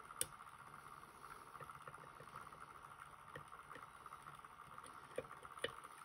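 Faint small clicks and ticks of a hook pick working the pins inside a JPM Surf euro cylinder lock under tension, with one sharp click just after the start and two more near the end. A faint steady hum lies underneath.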